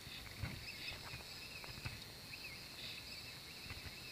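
Faint knocks and light clatter on a kayak, a few irregular taps, the loudest about half a second in and just before the two-second mark, over a steady high-pitched whine.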